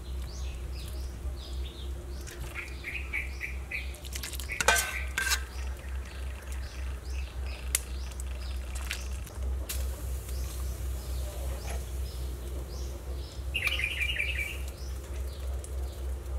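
Metal ladle stirring and clinking against an aluminium soup pot, the loudest clanks about four to five seconds in, with a few lighter knocks later. Small birds chirp in quick runs throughout, over a steady low rumble.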